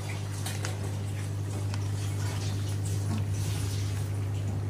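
Nuggets deep-frying in hot oil, sizzling with irregular small pops and crackles, over a steady low hum.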